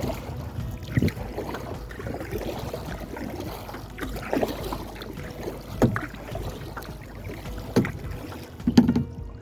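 Kayak being paddled: a steady wash of water with several sharp knocks a second or two apart, as the paddle strokes and bumps the hull.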